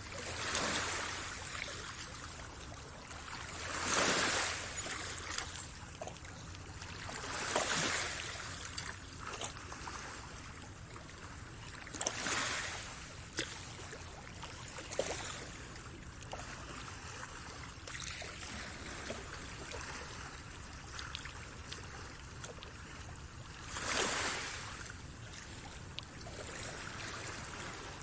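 Water washing in gentle swells that rise and fall every few seconds, like small waves lapping, over a steady low rush, with small trickling ticks in between.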